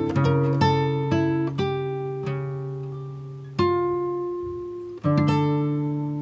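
Background music on plucked acoustic guitar: chords struck in quick succession, then later ones left to ring out and fade.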